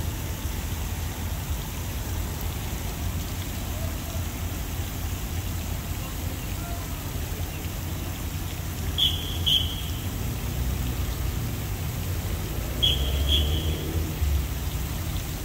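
Steady splashing of a pond fountain under a low rumble of wind on the microphone. About nine seconds in, and again about thirteen seconds in, come two pairs of short, high-pitched blasts.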